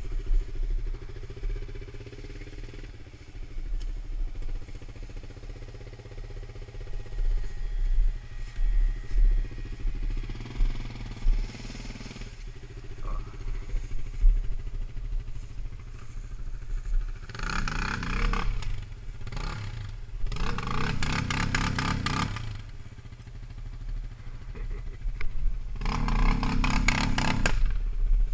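Sport quad engine idling, with three short bursts of throttle in the second half, the longest of them near the end.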